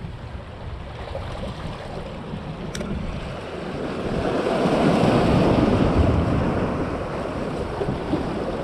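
Ocean waves washing against jetty rocks, one surge building about halfway through and then easing off, with wind on the microphone.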